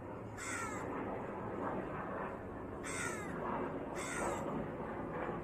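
A crow cawing for food: three loud, harsh caws with a falling pitch, the first about half a second in and the others about three and four seconds in, with fainter calls between them.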